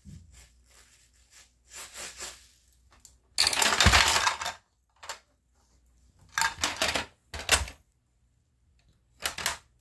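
Bursts of clattering and rattling, small hard pieces knocking on plastic, from a toddler handling a plastic shape-sorter toy. The loudest burst comes about four seconds in, with a low thump; shorter rattles follow twice more and once near the end.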